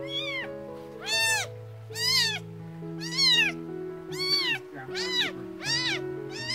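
A 17-day-old kitten mewing loudly and repeatedly, about eight high cries roughly one a second, each rising then falling in pitch, as it fusses while being held up and stimulated to urinate. Soft background music with long held notes runs underneath.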